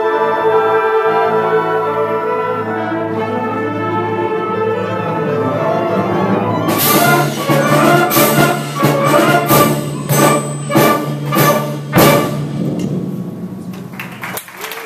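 School concert band playing the closing bars of a piece: held brass and woodwind chords, then from about seven seconds in a series of loud accented chords with percussion crashes. These end on a final hit about twelve seconds in that rings away, and applause begins near the end.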